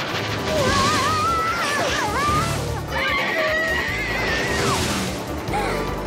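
Cartoon soundtrack: background music with a wavering high melody line, mixed with crash sound effects.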